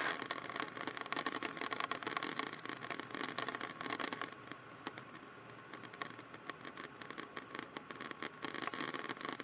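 Faint hiss and crackle on the cockpit intercom and radio audio feed, with many small clicks over a faint steady tone.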